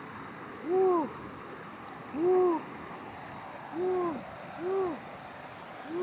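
Stream water rushing over rocks, with four short hooting calls that each rise and fall in pitch, spaced about a second or so apart.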